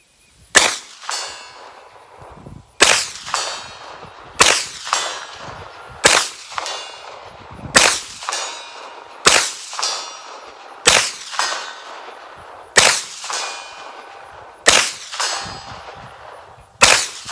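Ten single shots from a Hi-Point 995TS 9mm carbine, fired steadily about one and a half to two seconds apart. Each is followed shortly by the ring of a steel target being hit at 100 yards.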